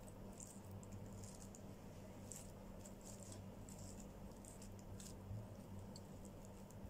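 Metal fork mashing boiled potatoes in a bowl: faint, irregular scraping and light clicks of the fork against the bowl, over a low steady hum.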